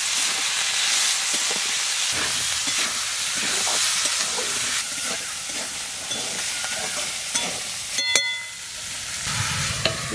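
Leafy greens and potato sticks sizzling in mustard oil in a steel wok while a spatula stirs and scrapes them. A single short metallic clink rings about eight seconds in, and the sizzle then softens.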